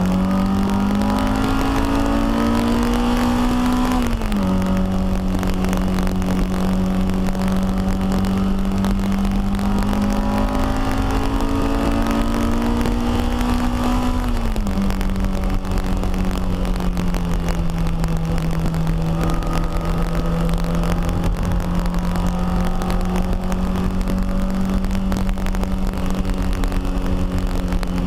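Honda K20 inline-four in a Toyota MR2 Spyder race car pulling hard under acceleration, heard from inside the cabin. The engine note climbs, then drops sharply with an upshift about four seconds in, climbs again, and drops with another upshift about fourteen seconds in. It then holds a fairly even pitch, with road and wind noise underneath.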